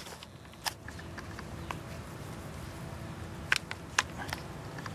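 Zigzag wiggle wire being pressed by hand into a metal lock channel over greenhouse plastic, giving a few sharp clicks as it seats, the loudest a little past three and a half seconds in and at four seconds.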